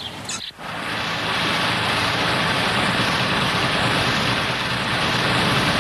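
A heavy engine running steadily with a constant rumbling drone, starting abruptly about half a second in.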